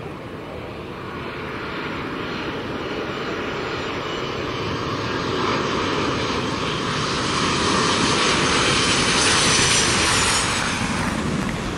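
Boeing 737-700's CFM56-7B turbofan engines on final approach to land, growing steadily louder as the jet comes close, with a high fan whine over a broad rumble. The sound peaks just before the end and begins to ease.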